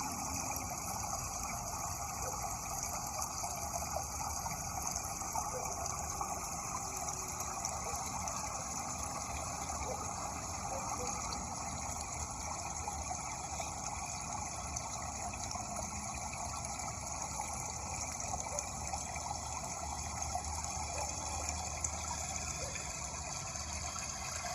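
Flowing water rushing steadily, an even splashing hiss with no pauses.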